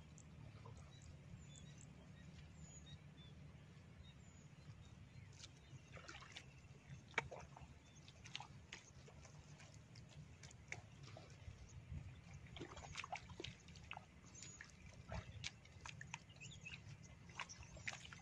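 Faint, scattered squelches and sucking clicks of bare feet stepping through wet paddy mud, over a low steady background noise.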